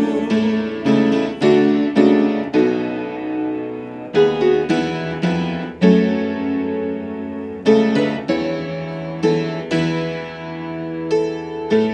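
Piano playing the instrumental interlude of a hymn between sung verses: chords struck about once or twice a second, each ringing and fading, with a longer held chord a little past the middle.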